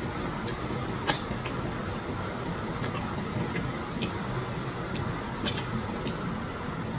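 Close-up mukbang eating sounds: wet smacks and clicks from chewing and from fingers tearing at food in soup. About a dozen irregular clicks, the sharpest about a second in, over a steady background hiss.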